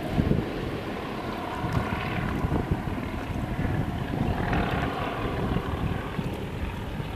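Aircraft engines of a formation of three aerobatic stunt planes droning overhead, swelling and fading a little as they manoeuvre, with wind rumbling on the microphone.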